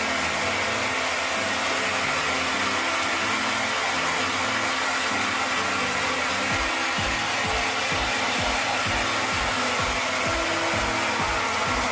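Hand-held hair dryer blowing steadily, drying a dog's wet coat after a shampoo. Background music plays under it, with a steady beat coming in about halfway through.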